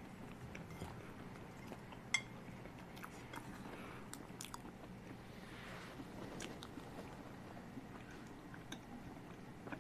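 Faint chewing of crisp taro-filled flaky pastry, with small clicks of chopsticks against a plate; one sharper click about two seconds in.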